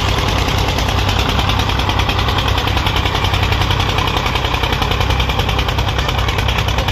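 Diesel tractor engine running close by, with a steady, fast, even chugging beat.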